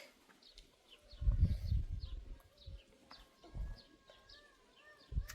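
A small bird chirping over and over, about three short high falling chirps a second, with a few low rumbles breaking in and a faint wavering tone joining in the second half.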